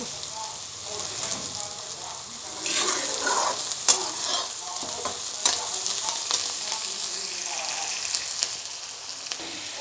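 Chopped onions sizzling in hot oil in a kadhai over a high flame, with a spatula stirring them and clicking and scraping against the pan.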